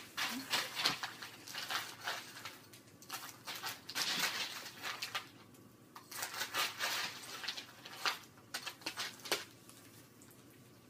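Eating noises: a string of short crunching and clattering sounds in irregular clusters, quieter for a moment about six seconds in.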